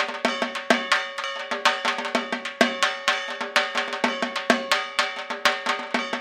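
Percussion music: fast, steady drumming with a ringing, metallic clang held under the strikes.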